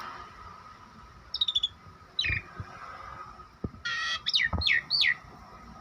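Pet jalak starling calling: short chirps about one and a half and two seconds in, then a burst of loud, sweeping whistled notes near the end, with a few dull knocks in between.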